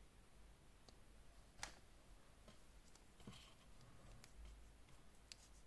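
Faint, irregular clicks and taps from handling a watch's orange silicone strap and its steel pin buckle while adjusting it on the wrist, the sharpest about a second and a half in.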